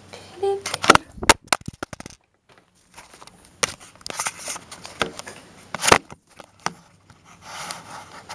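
Close handling noise from hands and a small plastic toy: a series of sharp clicks and knocks, a few a second at times, with a brief dropout about two seconds in.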